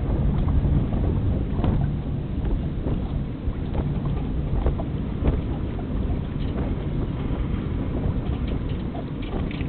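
Steady wind rumble on the microphone aboard a small sailboat under sail, with a few faint ticks scattered through.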